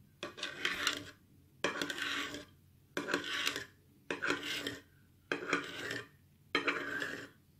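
Kitchen knife drawn through set gelatin and scraping against the ceramic platter beneath, six rasping strokes, about one every second and a bit, each starting suddenly.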